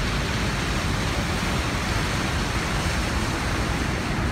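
Steady, loud roar of Niagara Falls and the churning whitewater beneath it, with wind buffeting the microphone.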